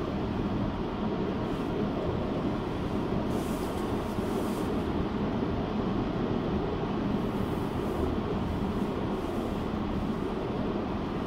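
Car driving on a highway in heavy rain: a steady rumble of tyres and rain, with two brief high hissing swells about three and four and a half seconds in.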